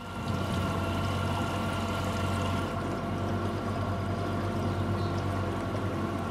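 Cable-laying barge's machinery running with a steady hum.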